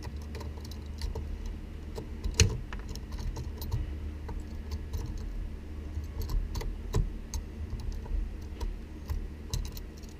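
Scattered light clicks and taps of a twisted speaker wire being worked into a car amplifier's negative terminal, with a sharper click about two and a half seconds in, over a steady low hum.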